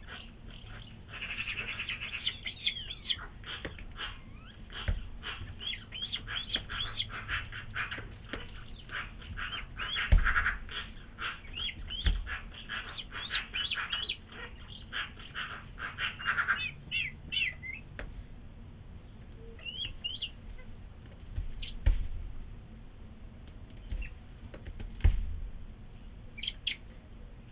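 Bearded vulture chick calling with rapid high-pitched peeps. The calls come densely through the first half, then in a few short scattered bursts. A few dull thumps sound among them.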